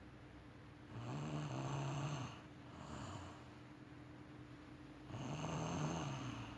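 A sleeping woman snoring: two snores, each a little over a second long and about four seconds apart, with a fainter breath between them.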